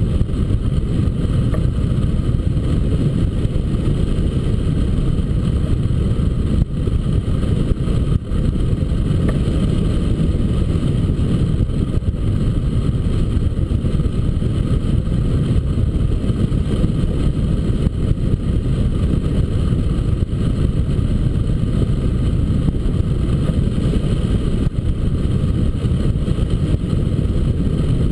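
Steady rush of wind buffeting the microphone of a camera mounted on a hang glider in flight, a constant low rumble.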